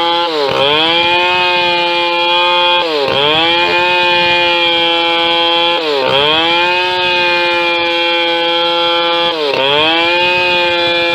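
Two-stroke chainsaw running at high revs while rip-cutting a log lengthwise into boards. Its pitch dips sharply and recovers four times, about every three seconds.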